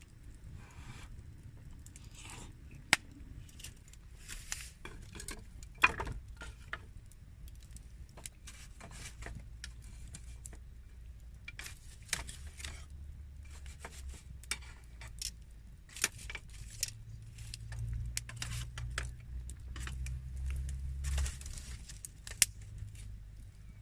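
Intermittent light clinks, clicks and clatters of small metal or hard items being handled, such as camp gear, cookware or utensils. A few sharper knocks stand out. A low steady rumble runs underneath and grows stronger in the second half.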